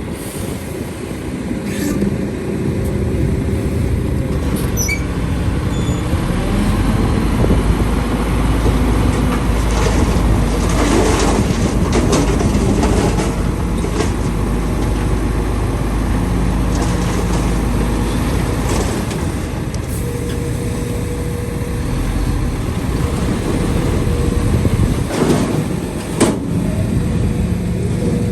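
Diesel engines of an excavator and dump trucks running together under load. A deeper rumble swells in for several seconds midway, and a few sharp metallic knocks come near the end.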